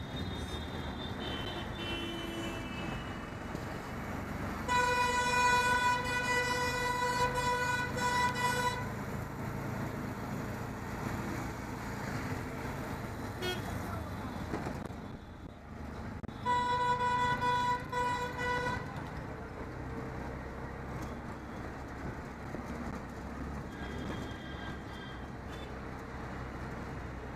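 A vehicle horn blares in a long, steady blast of about four seconds. Some ten seconds later it blares again for about two seconds. Under it is the steady engine and road noise of a ride in an auto-rickshaw through traffic, with fainter, higher horns beeping briefly near the start and near the end.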